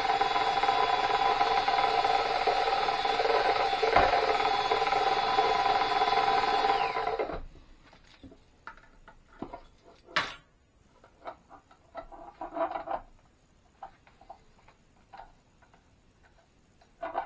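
Cordless drill with a paint-mixing paddle running steadily in a gallon can of paint for about seven seconds, then the motor winds down and stops. Afterwards come a few scattered light clicks and knocks.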